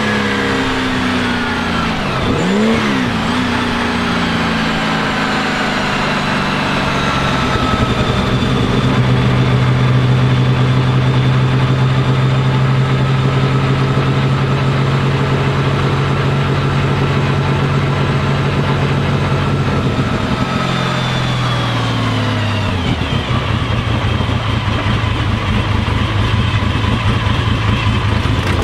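Porsche 935 K3's turbocharged flat-six engine running. Its pitch dips and recovers a few seconds in, then holds steady for about fourteen seconds before falling away and settling at a lower, steady note near the end.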